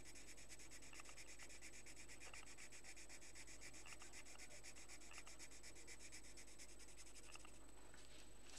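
Colouring pencil scribbling on paper in fast, even back-and-forth strokes, shading in a dark background, stopping about seven seconds in.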